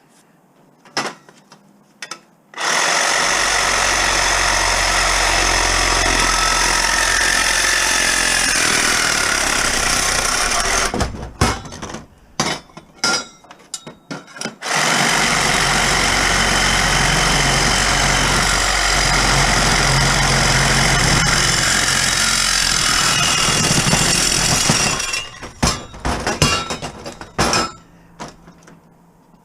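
An electric power tool runs loud and steady twice, for about eight and then ten seconds, starting and stopping abruptly, with knocks and clicks of metal being handled between and after the runs.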